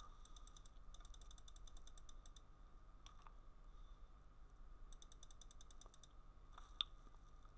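Faint small clicks at a computer: two quick runs of fine ticking and a couple of single clicks, over a faint steady hum.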